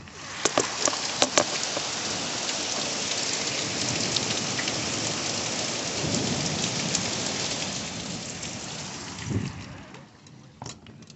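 Torrential rain pouring down steadily, with a few sharp drop hits in the first second or so and low rumbles about six and nine seconds in, fading out near the end.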